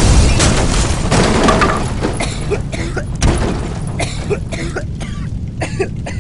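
Explosion sound effect: a loud blast rumbling away, then scattered sharp crackles and clatters as it dies down.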